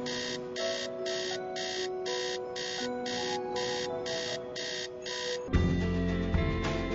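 Electronic alarm clock beeping in rapid bursts about twice a second over soft, held background music. The beeping stops about five and a half seconds in, when louder music with a heavy beat comes in.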